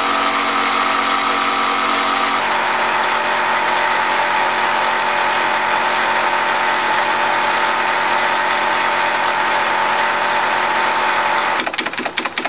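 Wilesco D28 toy steam engine running fast on live steam with its throttle opened up, driving its dynamo: a steady whir with held tones. The pitch steps down a little about two seconds in, and near the end the whir breaks into a rapid beat of separate strokes.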